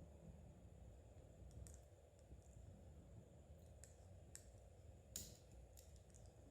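Faint, irregular clicking of metal knitting needles tapping against each other as stitches are worked, the clearest click about five seconds in.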